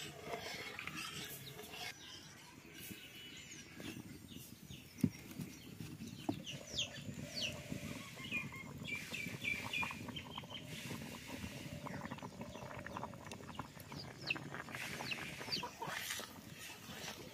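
Chickens clucking now and then, short sliding calls scattered through, with a few sharp knocks, one clearest about five seconds in.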